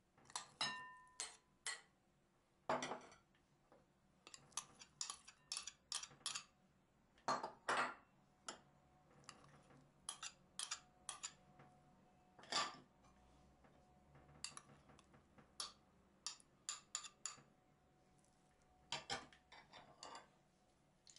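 Metal spoon clinking and scraping against small glass bowls and a ceramic mixing bowl as salad ingredients are tipped and spooned in. It is a string of sharp clinks and knocks, a few at the start ringing briefly.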